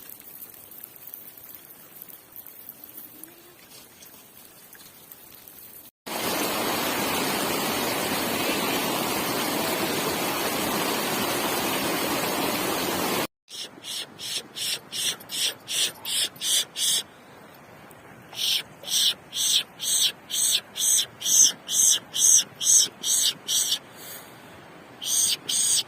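A loud, steady rushing noise lasts about seven seconds. It is followed by a long run of regular crunching steps in snow, about two a second, with a short pause near the end.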